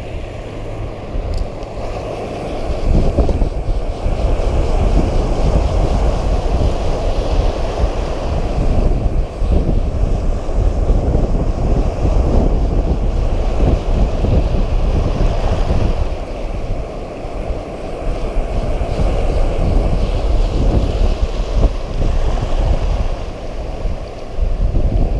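Wind buffeting the microphone in gusts, over the steady wash of waves breaking and surging across shallow water.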